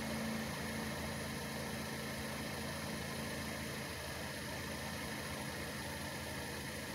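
Faint, steady low engine rumble with a low hum that fades out about halfway through.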